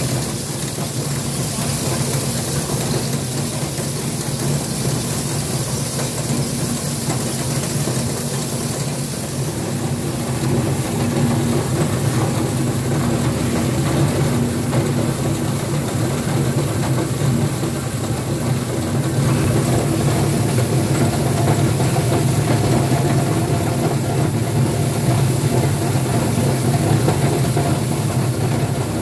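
Sweed PCR1034 scrap prechopper running steadily while chopping scrap shotgun shells: a continuous low machine hum under a dense rattle of material being cut.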